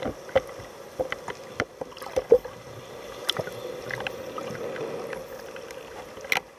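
Underwater sound picked up by a camera below the surface: a steady low hum with irregular sharp clicks and knocks over it. The loudest knock comes a little past two seconds in, and another comes near the end.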